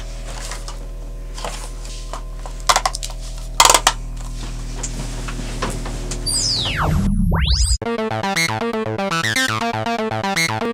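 Electronic synthesizer score: a low steady drone with a few sharp clicks, then a sweeping glide in pitch about seven seconds in. It cuts off suddenly and gives way to a fast pulsing synth pattern.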